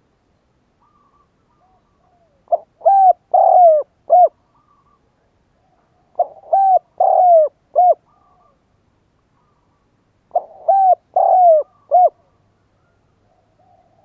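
Spotted dove cooing its advertising call: three phrases about four seconds apart, each of four clear notes, the third note the longest and falling in pitch.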